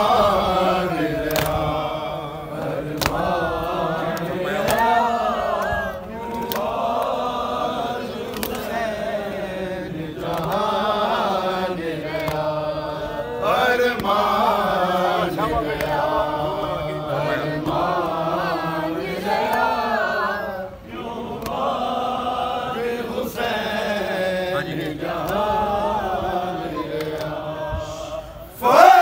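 Group of men chanting a noha, a Shia mourning lament, in a rising and falling melody. Sharp slaps of matam, hands striking chests, land every second or two.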